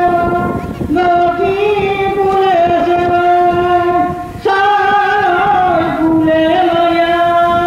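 A group of women singing a tribal folk song together in unison, in long held notes with short breaks about a second in and again about four and a half seconds in.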